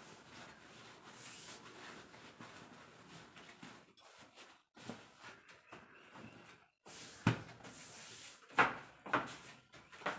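Cloth rustling as a bundle of folded clothes wrapped in a veshti is pressed and lifted, with a few sharp knocks in the second half.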